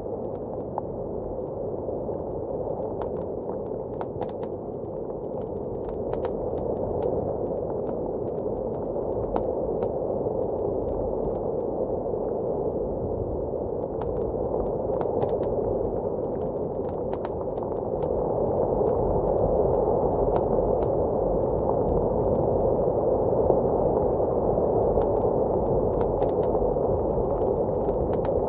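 Blizzard wind blowing steadily outside, heard muffled as a low rushing, with a wood fire crackling in scattered sharp pops. The wind grows a little louder about two-thirds of the way through.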